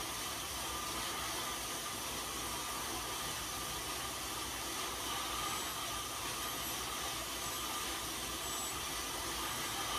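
Road bike tyres spinning on InsideRide rollers, a steady whir as the rider keeps pedalling.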